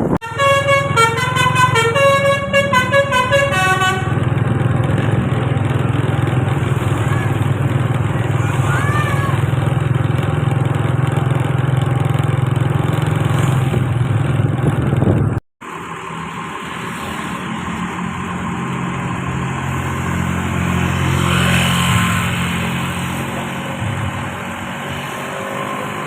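A bus's basuri musical horn plays a quick tune of stepped notes for about four seconds, then the bus engine runs steadily under traffic noise. The sound drops out for an instant about halfway through, and engine noise swells briefly near the two-thirds mark.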